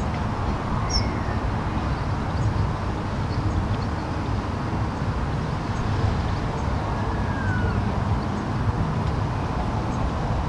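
Steady low outdoor rumble with no speech, even in level, with a couple of faint high chirps about a second in and again about seven seconds in.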